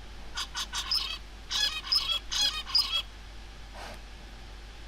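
Zebra finch song: a run of rapid, buzzy and tonal syllables lasting about three seconds. It is one adult's song from a colony whose songs all sound different.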